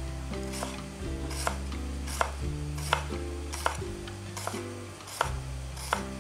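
Chef's knife slicing bitter gourd on a wooden cutting board, each stroke knocking the board about once every three-quarters of a second, over soft background music.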